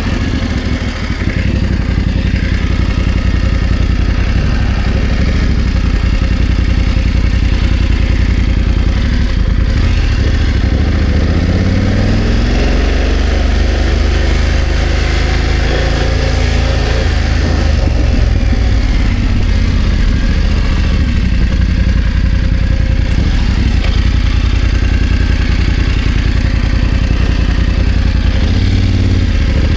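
BMW F 900 GS parallel-twin engine running steadily at low revs, with the revs rising about twelve seconds in, easing off, and rising again near the end.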